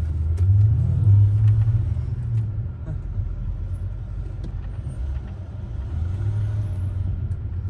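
Engine and road rumble of a Land Rover SUV heard inside its cabin while it drives in slow traffic. The low rumble swells about half a second in, eases off, and swells again near the end.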